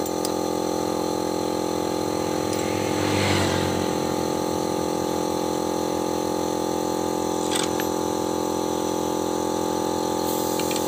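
Engine running steadily at an even speed, with a brief swell about three seconds in and a couple of light clicks later.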